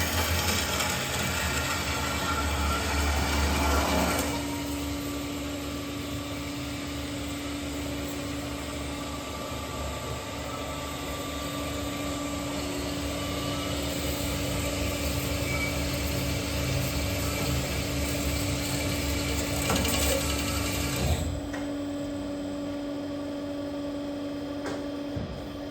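Berg & Schmid GBS305 VA-I CNC automatic miter band saw running with a steady machine hum and a constant tone. A louder, rougher sound fills the first four seconds, and the higher hiss falls away about 21 seconds in.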